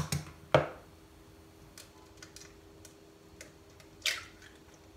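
An egg being cracked into a bowl: one sharp tap about half a second in, a few faint ticks, then a short crackle of shell being broken open about four seconds in.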